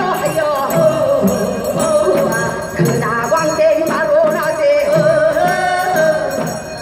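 Gyeonggi-style Korean folk singing (jaedam-sori), voices wavering and ornamented, over a steady drum beat falling about once a second.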